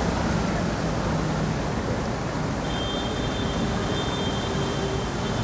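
Motorcycles running through floodwater on a street, their engines under a steady wash of splashing water and traffic noise.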